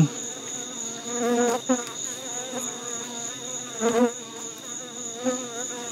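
Honey bees buzzing as they fly close by, a wavering hum that swells about a second and a half in and again about four seconds in. Under it, crickets chirr steadily on a high pitch.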